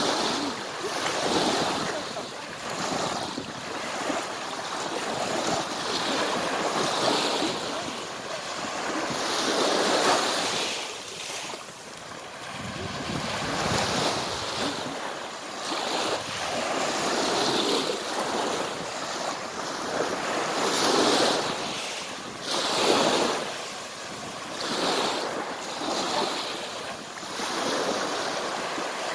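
Small waves breaking and washing up a pebble beach, swelling and falling back every few seconds.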